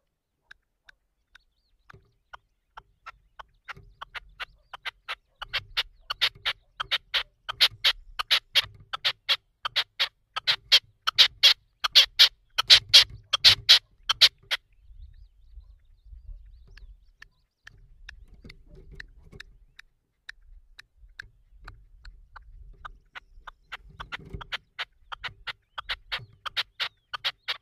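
Red-legged partridge calling: a long run of sharp, rapidly repeated notes, several a second, growing louder and breaking off about halfway through, then a second run building up near the end.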